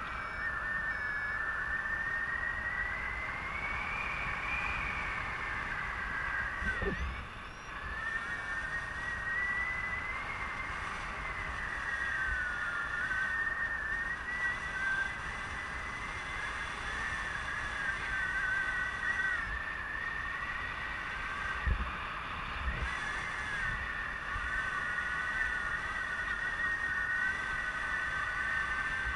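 Wind rushing past the microphone in paraglider flight: a steady high whistle that wavers slowly up and down in pitch, over low wind buffeting.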